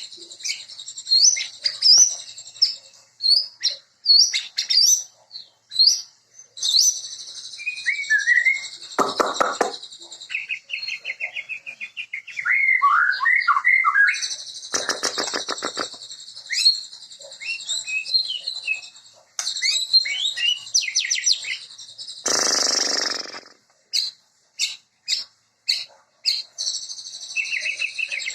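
White-rumped shama (murai batu) singing a long, varied song of quick whistled phrases and chirps. Harsh rattling note trains come twice, and a harsh buzzy burst comes about two-thirds of the way through.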